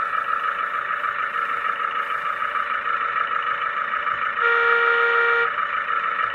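Hydraulic pump of an RC hydraulic excavator running with a steady whine, joined about four and a half seconds in by a horn-like tone lasting about a second.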